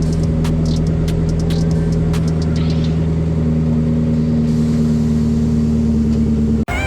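Pickup truck engine running at a steady pitch, with a few sharp clicks over the first three seconds; it cuts off suddenly near the end.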